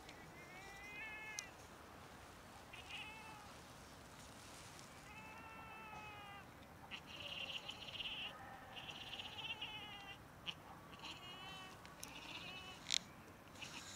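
Female cat calling during mating while a tom mounts her and grips her neck: a series of drawn-out meowing cries, each rising and then falling in pitch, about six in all. A sharp click sounds near the end.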